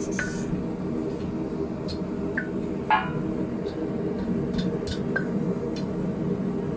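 A few light hand-hammer taps on a red-hot round steel bar over the anvil horn as it is bent into a curve, each with a short metallic ring, the loudest about three seconds in. A gas forge burner runs steadily underneath.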